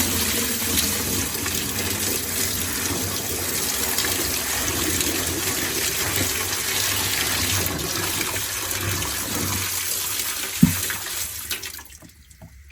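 Water pouring steadily into the tub of an LG top-loading washing machine as it fills for a bleach tub-clean, dying away shortly before the end. A single short knock comes just before the water stops.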